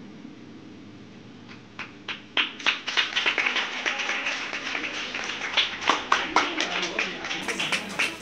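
A crowd applauding: a few scattered claps about a second and a half in, filling quickly into dense clapping.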